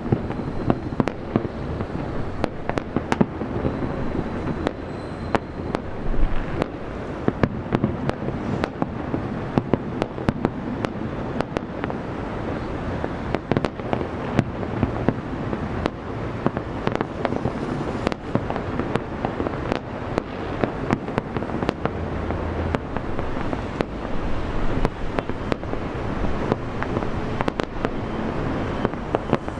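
Aerial fireworks show: a dense, unbroken run of sharp bangs and crackling over a low rumble.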